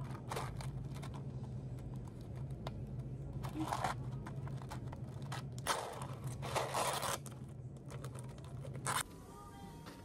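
Hands scraping and peeling the sealed lid off a plastic cup of ice: scattered clicks and crinkling with a few louder tearing noises, the last about nine seconds in. A steady low hum runs underneath and stops at that point.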